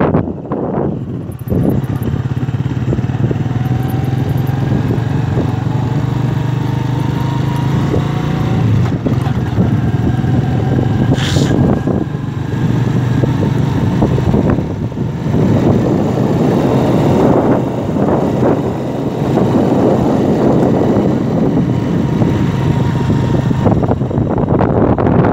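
Small motorcycle engine running steadily while riding, with wind rushing over the microphone, heavier in the second half.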